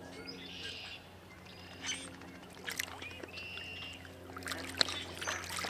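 Light splashing and trickling of shallow water as hands move in it at the shoreline, just after a small fish is let go. Birds sing two short phrases in the background.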